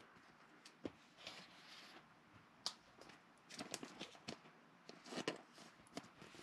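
Faint scattered rustles and small ticks of glossy trading cards being slid into thin clear plastic penny sleeves and handled.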